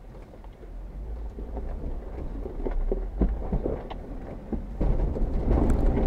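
Jeep Wrangler Rubicon crawling over rocks: a low engine rumble with scattered knocks and crunches from the tyres and chassis on rock, louder near the end.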